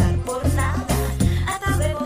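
Upbeat Latin pop dance music with a heavy, even bass beat and a melody over it.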